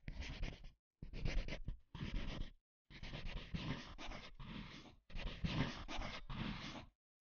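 Pencil scratching on paper in writing strokes, in about five bursts that each cut off abruptly into dead silence.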